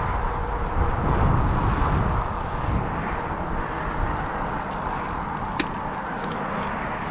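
Steady rush of Interstate 90 freeway traffic far below, mixed with wind buffeting the microphone, strongest between about one and three seconds in. A single sharp click about five and a half seconds in.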